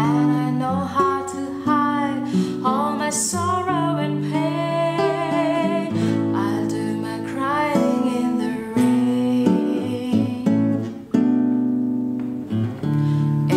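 A woman singing with acoustic guitar accompaniment. Her voice stops about eleven seconds in and the guitar plays on alone.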